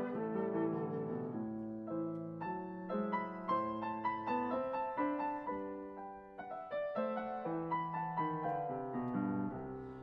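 Steinway grand piano playing alone: a solo passage of classical music in a steady run of struck notes, briefly softer about halfway through.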